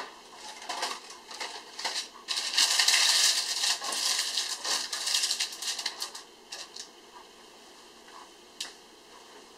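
Paper loaf-tin liner crinkling and rustling as fingers press it into a metal loaf tin, loudest from a couple of seconds in and dying away about halfway through. A light knock at the very start as the tin is set down on the tray.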